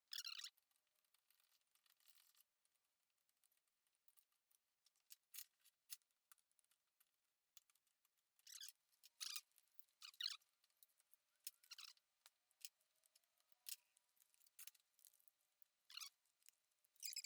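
Near silence broken by about a dozen faint, short, scratchy sounds and clicks at irregular intervals, like something small being handled or scraped.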